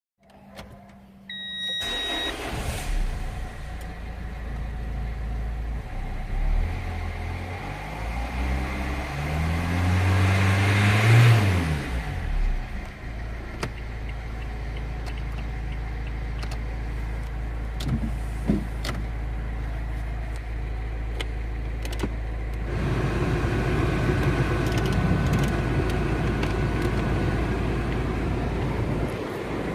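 Renault 1.5 dCi (K9K) four-cylinder turbodiesel engine cranked and started about two seconds in, then idling. It is revved up and back down between about 8 and 12 seconds, then settles back to a steady idle.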